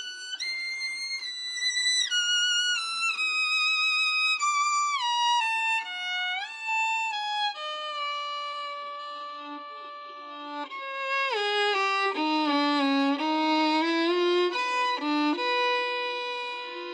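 Solo violin playing a slow melody, one line of notes with slides between some of them. A long held note comes in the middle, then a falling run of notes, and another held note near the end.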